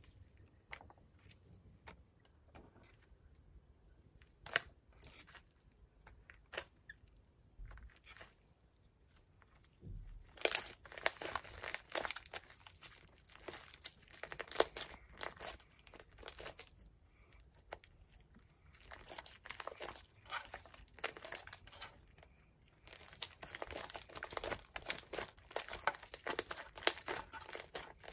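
Hands kneading and squishing slime as makeup is mixed into it: sticky crackling with small clicks and pops, only a few scattered clicks at first, then dense crackling from about ten seconds in with brief pauses.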